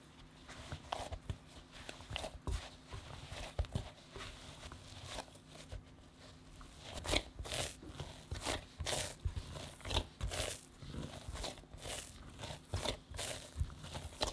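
Soft bread dough being kneaded hard by hand in a glass bowl: an irregular run of squishes and pats as the fist presses and folds it, coming closer together and louder from about halfway through. The shaggy dough is just coming together into one ball, before the butter is worked in.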